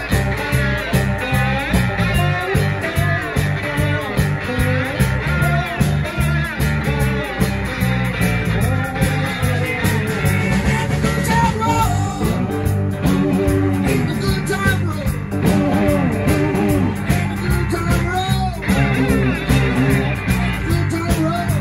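Live blues band playing an instrumental passage: electric guitars playing lead lines with bent notes over bass and drums keeping a steady beat.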